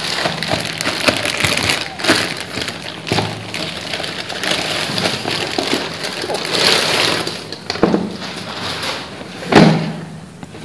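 Clear plastic packaging bag crinkling and rustling as an exhaust fan is unwrapped and pulled out of it, with a thump near the end.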